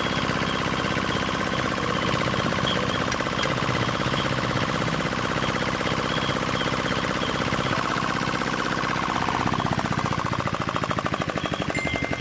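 Single-cylinder D10 RM90 diesel engine running steadily, fitted with a new injector and high-pressure injection pump. Near the end it slows and each firing stroke becomes distinct as the throttle is pulled back to shut it down.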